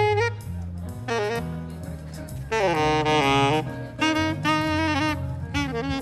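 Jazz saxophone playing a melody in short phrases over a low backing accompaniment.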